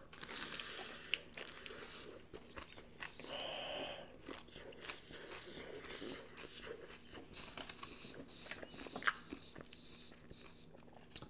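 Chewing and crunching of crispy food, an air-fried egg roll and tortilla chips, with many small sharp crunches and one louder crunch about nine seconds in.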